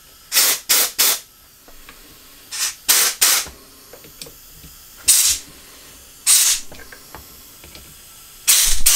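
Short blasts of compressed air from a blow gun, turned down to low pressure, hissing through the vent passages of a Honda CB750 four-carburettor bank. There are a few quick blasts in the first second, more around three seconds and five to six seconds in, and another near the end. The air is passing freely, so the vents are clear.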